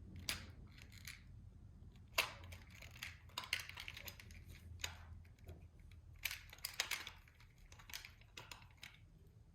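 Irregular small plastic clicks, taps and scrapes from handling a Plarail toy train's wheels while a worn rubber traction tire is pried off, with a low steady hum underneath.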